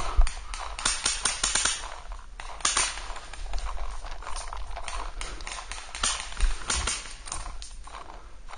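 Paintball markers firing in rapid bursts of sharp snapping shots, the clusters coming and going every second or two.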